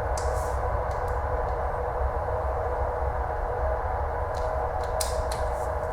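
A few short metal clicks and scrapes of a wrench on the timing chain tensioner bolts of a Toyota 2SZ engine as they are given their final tightening, over a steady background hum.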